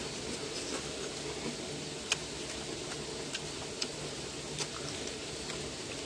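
A man chewing a chewy piece of cooked squid leg, with faint irregular wet mouth clicks over a steady background hiss.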